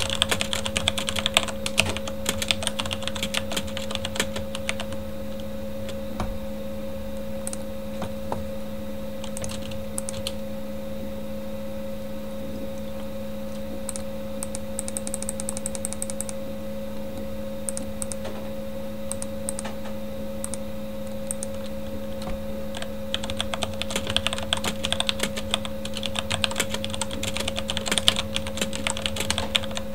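Typing on a Corsair K70 mechanical keyboard with Cherry MX Red switches: a fast run of key clatter thins to scattered keystrokes about five seconds in, then picks up to fast typing again for roughly the last seven seconds. A steady hum from a computer fan runs underneath.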